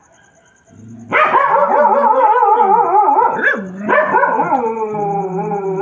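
Dogs howling in long, wavering, overlapping cries that start about a second in, with a few short barks mixed in.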